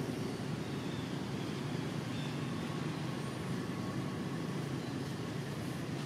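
Steady low rumbling ambient noise with no distinct events and no calls from the monkey.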